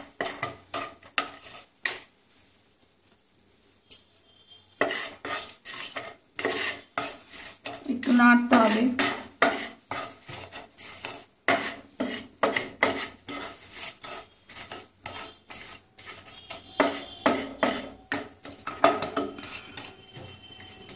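Wooden spatula stirring and scraping around a nonstick kadai of hot oil with bay leaves and sugar, in repeated quick strokes with a pause of about three seconds near the start. The sugar is being browned in the oil before the spice paste goes in.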